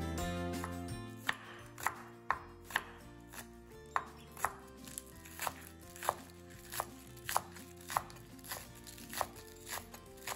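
Chef's knife chopping spring onions on a wooden cutting board, sharp knocks about two a second, starting a little over a second in. Background music plays throughout, louder at first and then fading low under the chopping.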